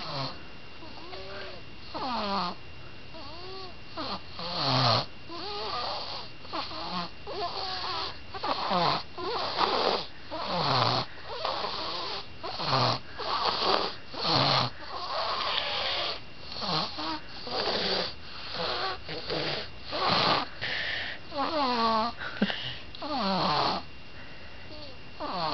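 Snoring in sleep: quick, rhythmic snores about one a second, many with a whistling pitch that slides downward.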